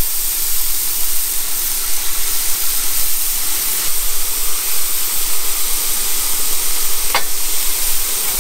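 Marinated Korean-style beef short ribs sizzling on the hot grate of a PK GO portable charcoal grill as more pieces are laid on: a loud, steady hiss, with a brief click about seven seconds in.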